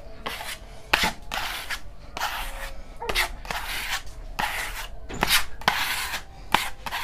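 Flexible plastic spatula scraping and smearing the first coat of decorative wall paint across a plastered wall. It makes short rasping swishes about two a second, with a few sharp clicks as the blade strikes the wall.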